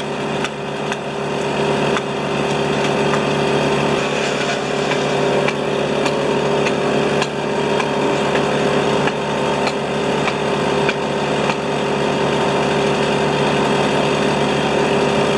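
Fuel-injected Stihl chainsaw running steadily at an even pitch.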